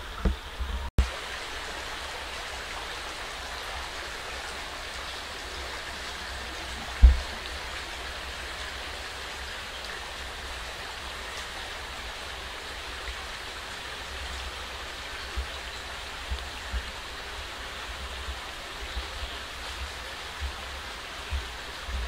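Steady rushing of a stream running, with one loud low thump about seven seconds in and a few faint knocks later.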